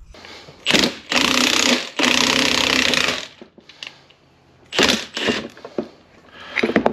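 Impact wrench hammering in several bursts, the longest over a second, as it drives the screw of a ball joint press to push a new steering ball joint into its cup.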